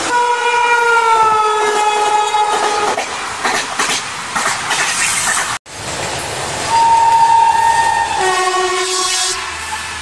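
Indian Railways electric locomotive air horn blowing one long blast that sags slightly in pitch, followed by wheels clattering over rail joints. A second horn then sounds a higher note and drops to a lower one.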